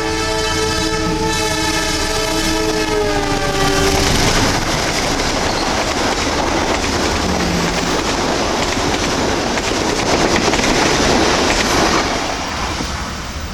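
Diesel-electric locomotive CC 203's air horn sounding a long blast of several notes together, its pitch dropping just before it stops about four seconds in. The train then runs past with a steady loud rumble and wheel clatter on the rails, fading near the end.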